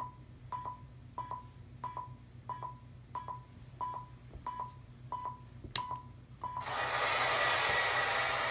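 Short electronic beeps at a steady pace of about one and a half a second, then a sharp click and a loud, steady hiss of simulated steam from the American Flyer Polar Express locomotive's sound system, starting about two-thirds of the way in.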